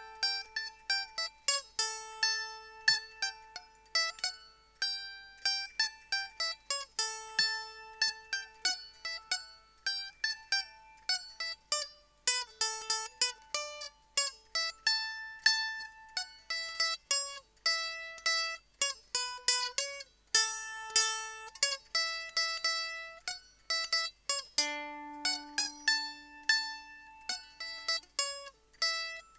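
Solo A-style f-hole mandolin playing a reel: quick single-note picking, a run of bright plucked notes with one longer, lower note held near the end.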